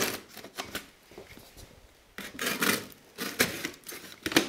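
Box cutter slicing through the packing tape on a cardboard box in a few short scraping strokes, with knocks and rubbing of the cardboard in between.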